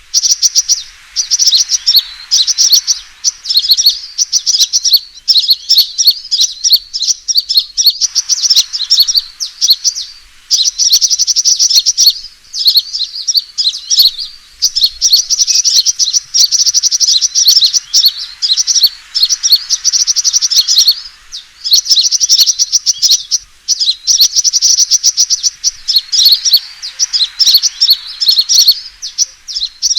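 Sunbirds giving their fighting calls, played as a bird-lure recording: rapid, high, chattering trills in runs of a few seconds, broken by short pauses.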